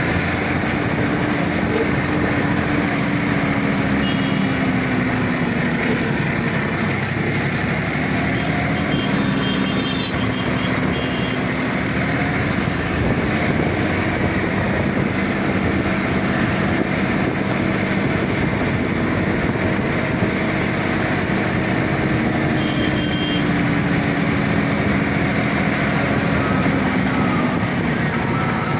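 Sonalika DI-50 RX tractor's diesel engine running steadily while driving on the road, its pitch dipping and recovering about five seconds in and again about three-quarters of the way through as the engine speed changes.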